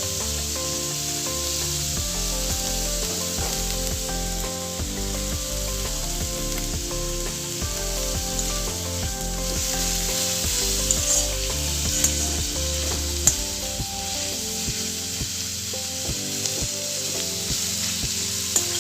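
Onions frying in hot refined oil in a pan, a steady sizzle, stirred with a spatula that clicks sharply against the pan a few times past the middle. The onions are being browned.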